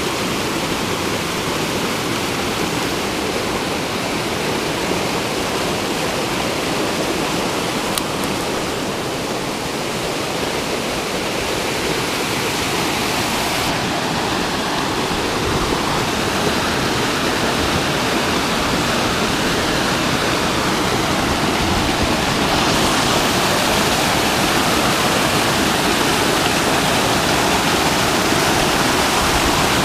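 Mountain creek pouring over boulders in a waterfall: a steady rush of falling water that grows a little louder and brighter about three-quarters of the way through.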